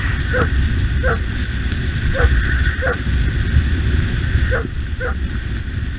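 Dog giving about seven short, high yips, several in quick pairs and at uneven gaps, over the steady low rumble of a motorcycle engine and wind.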